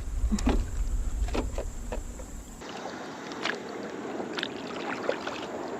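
Water splashing and light knocks against a canoe hull as a hooked channel catfish is pulled up on its jug line. A low rumble during the first two and a half seconds cuts off abruptly, then scattered knocks and splashes follow.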